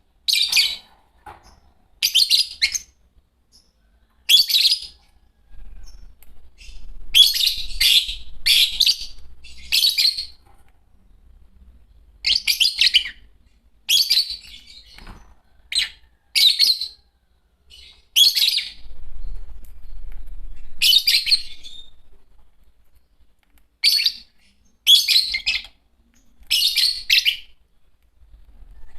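A pair of green Fischer's lovebirds chirping in short, high-pitched bursts every second or two.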